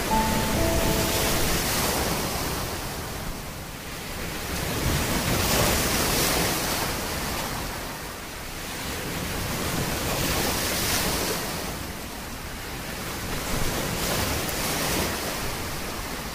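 Ocean waves washing in, swelling and fading about every four to five seconds. A few short tones ring out at the very start.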